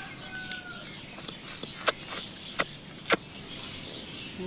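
A person eating fried dried fish close to the microphone: chewing and lip-smacking, with four sharp smacks between about two and three seconds in.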